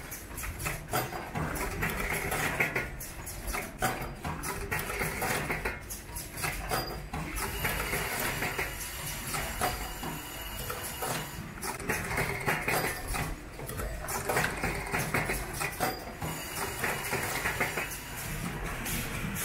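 Automatic power-cord coiling machine running through its cycle: repeated sharp clicks and clacks of its clamps and moving arm, with a rushing noise that swells every few seconds over a steady machine hum.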